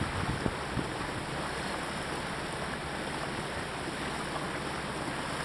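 Sailboat motoring under its auxiliary engine: a steady low engine drone under the rush of water along the hull, with a couple of wind bumps on the microphone in the first half second.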